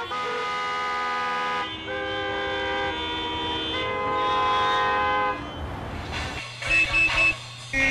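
A chorus of car horns held together in overlapping chords that shift pitch twice, then breaking off; about six and a half seconds in, horns start sounding short toots in a quick rhythmic riff.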